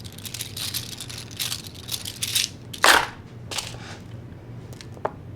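Costume jewelry and its packaging handled and sorted by hand: rustling with small clinks, a louder clatter about three seconds in, and a sharp click near the end.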